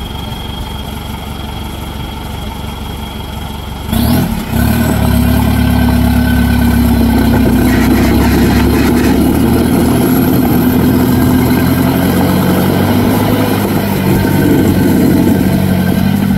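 Off-road Jeep engine running, quieter at first, then about four seconds in it jumps abruptly louder and holds a steady, higher-revving note.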